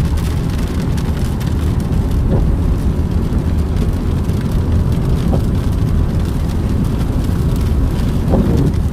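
Steady road and engine rumble inside a moving car's cabin, with heavy raindrops pattering on the windshield and roof.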